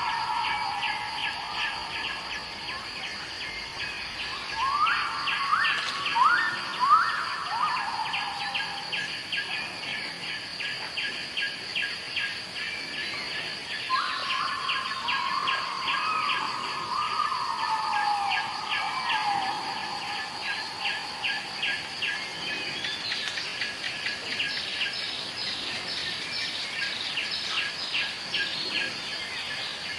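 Birds calling, with clusters of falling whistled calls, over a steady chorus of fast, even chirping at about four chirps a second and a thin, steady high buzz.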